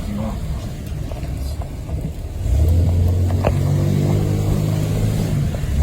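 Truck engine and road rumble from inside the cab; about two and a half seconds in the engine gets suddenly louder and holds a steady low drone as the truck accelerates. A single click sounds about a second later.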